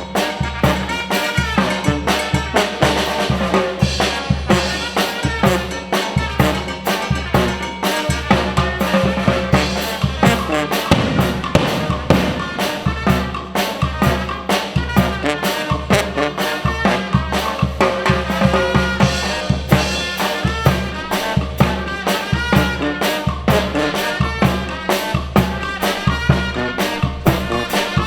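Costa Chica banda playing: brass instruments over a driving, steady drum beat with bass drum and snare.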